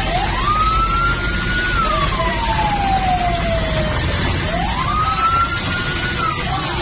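Fire truck siren wailing: it rises quickly, holds a high note, then slides slowly down, twice over, with a fainter lower siren tone underneath. A steady hiss of traffic on the wet road runs beneath it.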